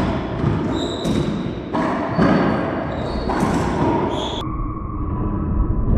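Racquetball doubles rally in an enclosed court: a string of sharp, echoing hits, about one every half second to second, as the ball is struck by racquets and bounces off the walls and floor, with short squeaks mixed in.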